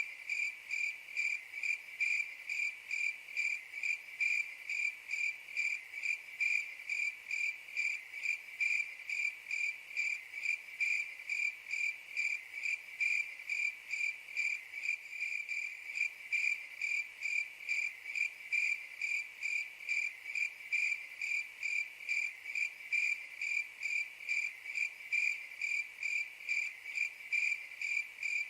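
Cricket chirping in a steady, even rhythm of about three short, high chirps a second, all at one pitch.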